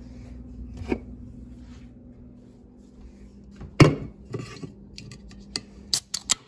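Kitchen handling clatter, with one loud knock a little past the middle, then a quick run of sharp clicks near the end as the pull tab of an aluminium energy-drink can is cracked open.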